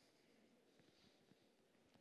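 Near silence: hall room tone in a pause between sentences of a talk.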